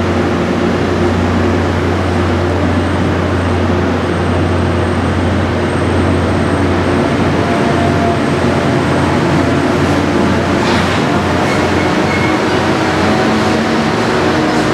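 Tri-Rail push-pull commuter train rolling slowly past the platform. Its bi-level coaches make a steady rolling noise over a constant low drone from the diesel locomotive pushing at the rear.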